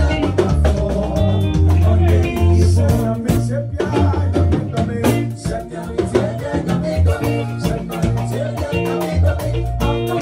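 Band music with a heavy bass line and a steady drum beat.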